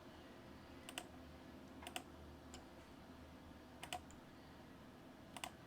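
Faint computer clicks, mostly in quick pairs, scattered about once a second or two, over a low steady hum.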